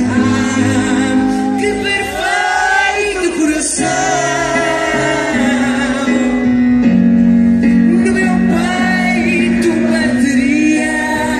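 Live music: a singer's wordless, sliding vocal line over keyboard accompaniment, with long held chords.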